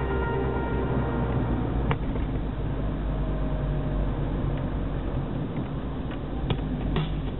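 Car driving, heard from inside the cabin: a steady low rumble of engine and road noise with tyre noise from the damp road.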